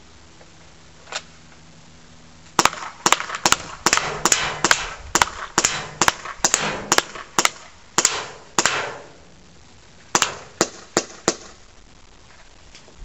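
P22 gas airsoft pistol firing semi-auto in quick succession: one shot about a second in, then a run of about fifteen sharp pops, a pause, and four more near the end, emptying a magazine.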